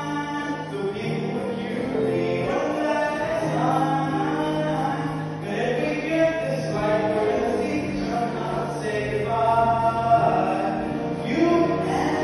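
A young man singing a solo number live on stage, his voice held and sliding over sustained low accompaniment notes, with the hall's echo around it.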